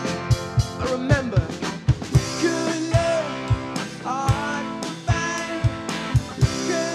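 Live rock band playing a song: drum kit beating a steady rhythm with kick drum and snare, strummed acoustic guitar and electric guitar, with a man singing lead through the PA.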